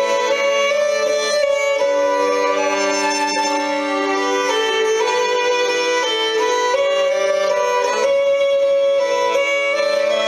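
Background Scottish music: a slow melody of long held notes, with no beat.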